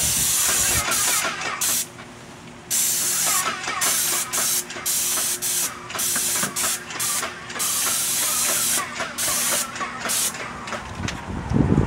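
Airless paint sprayer hissing as its extension-pole gun sprays the soffit in bursts: one long pass at first, then many short ones as the trigger is pulled and released. A low rumble comes in near the end.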